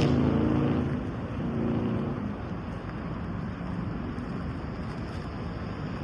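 Pickup truck running: a pitched engine drone for about the first two seconds fades into steady road and wind noise.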